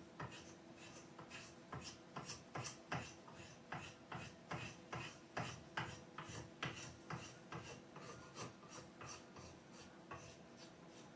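Hand rasp scraping a wooden axe handle in quick, even strokes, about two a second, shaping the handle to fit the axe head. The strokes are fairly faint and stop about ten seconds in.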